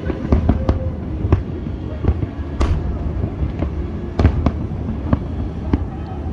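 Fireworks display: an irregular series of about a dozen sharp bangs from bursting shells over a steady low rumble. The loudest bursts come about two and a half and four seconds in.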